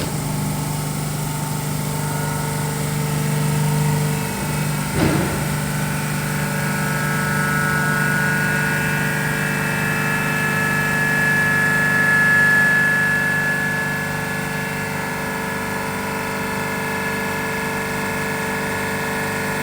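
Frascold Z40-126Y semi-hermetic screw compressor starting up on a test bench and running: a steady hum that comes on suddenly, a brief knock about five seconds in, then a higher whine that builds, peaks and settles as the compressor comes up to its running load.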